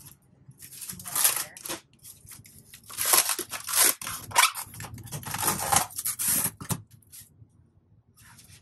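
Polystyrene foam packing scraping and plastic wrap rustling and tearing as a wrapped metal machine part is pulled out of its foam cavity, in two spells: a short one about a second in and a longer, louder one from about three seconds to near seven.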